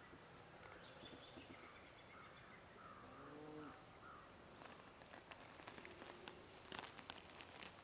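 Near silence in woodland, with faint animal calls in the first half and a scattered run of light crackles and ticks in the second half.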